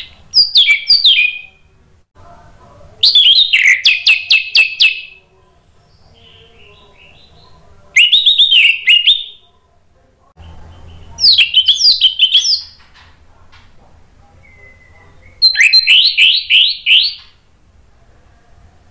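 Orange-headed thrush singing loud, full-voiced song in five phrases a few seconds apart, each a quick run of sharp, high notes lasting one to two seconds.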